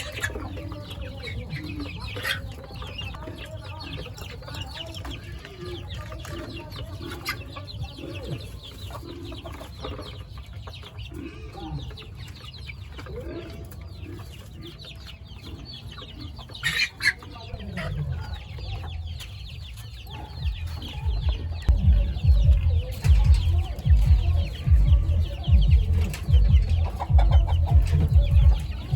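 Chickens clucking, many short calls overlapping. About two-thirds of the way in, a loud, uneven low rumble comes in and stays, louder than the clucking.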